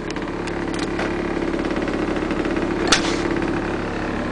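Motorhome's 300 hp Cat diesel engine idling steadily, heard from inside the coach, with one sharp click about three seconds in.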